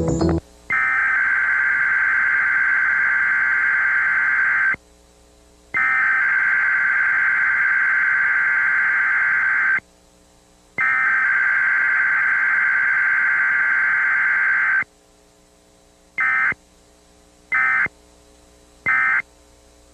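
Emergency Alert System digital data bursts with a harsh buzzing sound: three long bursts of about four seconds each, a second apart, then three short bursts near the end. These are the SAME header sent three times, followed by the three end-of-message codes.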